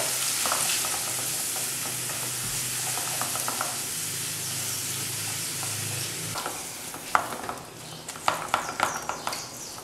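Shredded collard greens sizzling in melted butter in a pot, a steady frying hiss that eases after about six seconds. In the second half a spatula stirs the greens, with quick scrapes and clicks against the pot.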